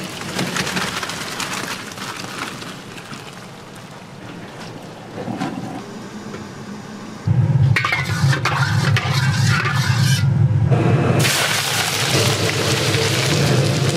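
Wok cooking for jjamppong in a restaurant kitchen. A low rushing noise from a high gas flame comes in suddenly about halfway through, and loud hissing, sizzling and liquid sounds join a few seconds before the end.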